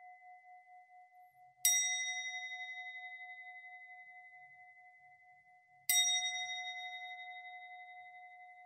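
Singing bowl struck twice, about four seconds apart. Each strike rings on in a long, slowly fading hum with a steady wobble, and the ring of an earlier strike is still dying away at the start.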